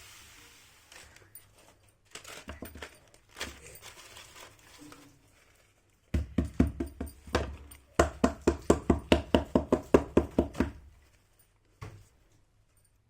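Small toy pieces being handled and set down, making scattered clicks and knocks, then a quick run of light taps, about six a second, for a couple of seconds after about eight seconds in.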